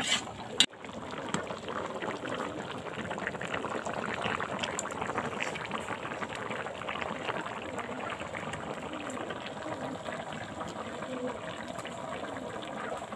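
Hilsa fish and wax gourd curry boiling in a pan, the gravy bubbling and popping steadily. Two sharp knocks in the first second.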